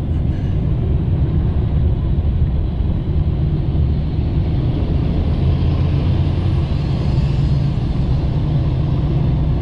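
Steady low rumble of road and engine noise heard inside a moving car's cabin in city traffic.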